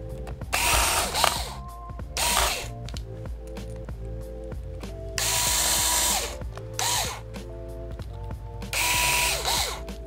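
Cordless electric screwdriver driving small screws into a laptop's motherboard and brackets, whirring in five short bursts. Its whine falls in pitch as most bursts end. Soft background music plays underneath.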